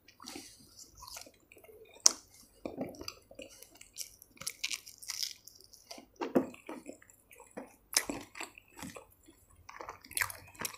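Chewing a mouthful of paratha, with irregular soft wet smacks and clicks from the mouth.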